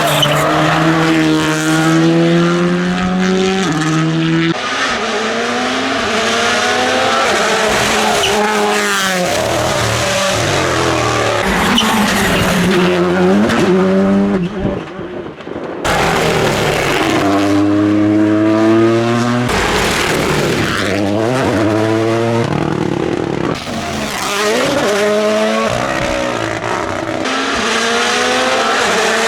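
Rally cars driven hard on a stage, engines revving high and climbing in pitch through quick upshifts, then dropping back off the throttle. The sound changes abruptly several times as one car's run gives way to another's.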